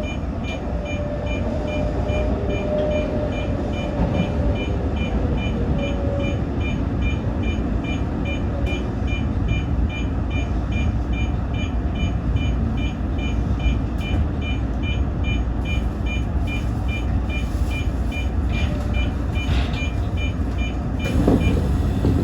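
Toyo Rapid Railway 2000 series electric train running with a steady low rumble as it pulls into a station, with a faint whine in the first few seconds. A rapid electronic beeping, about three a second, goes on throughout and stops shortly before the end.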